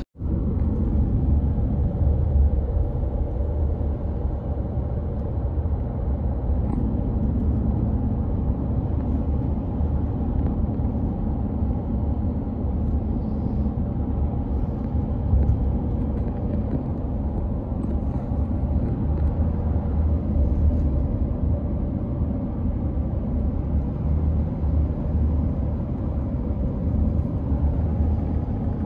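Steady low road and tyre noise of a car cruising on an expressway, heard from inside the cabin.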